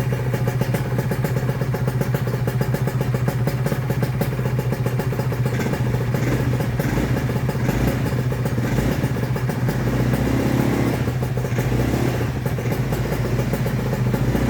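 Motorcycle engine running steadily with a rough 'ngorok' (snoring) note, a little louder around ten seconds in.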